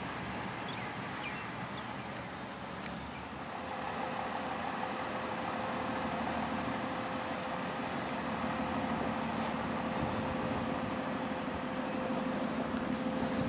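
Large emergency vehicles' engines running as a fire engine drives by and then an ambulance and fire engine roll slowly closer. About three and a half seconds in the sound grows a little louder and a steady hum sets in.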